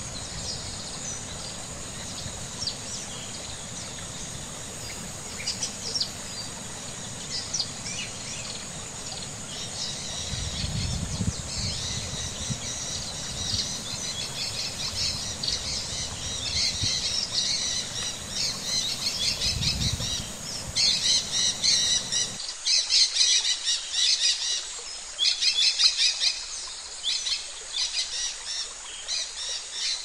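Small birds chirping and twittering in quick, overlapping calls, busier and louder in the last third. A low rumble runs underneath and cuts off suddenly about two-thirds of the way through.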